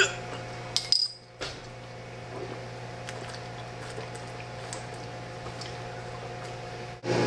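A glass bottle clinks twice near the start as it is handled, with short ringing. Under it a running microwave oven hums steadily, and the hum grows louder near the end.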